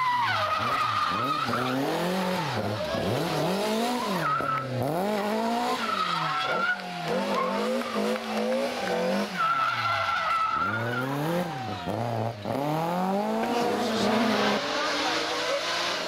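BMW E30 rally car's engine revving up and down over and over as it drifts and spins its rear tyres on tarmac, with tyre squeal coming and going in several stretches of a second or two.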